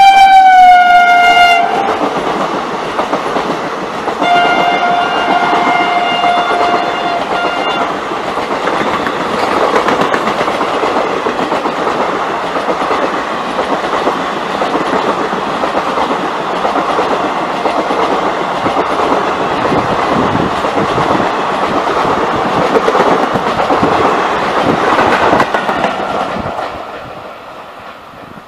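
Indian Railways express train passing close by. Its locomotive's horn sounds as it goes past, the pitch dropping, and then gives a second blast of about three and a half seconds. The coaches then run by on the rails in a steady rush of wheel noise that fades out near the end.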